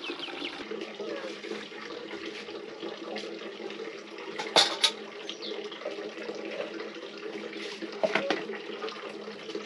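Water running steadily from a tap as someone washes, with a few short knocks and splashes about halfway through and again near the end.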